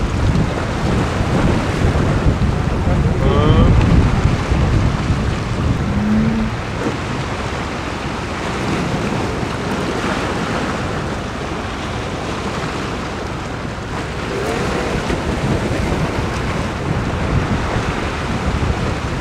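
Gusty sea wind buffeting the microphone over waves washing against the rocky shore, loudest about four seconds in.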